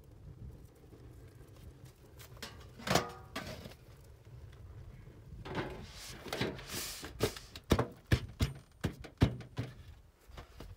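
Galvanized steel trash-can lid clanging down onto a raku reduction can about three seconds in, with a short metallic ring. Later comes a stretch of scraping, then a quick run of sharp metal knocks and clatter as the lids are worked down to seal out air for reduction.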